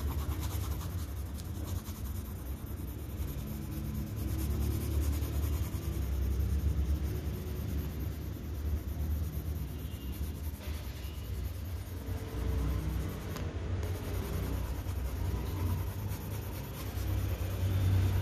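Graphite pencil shading on drawing paper: repeated scratchy strokes filling in a middle-tone area, over a steady low hum.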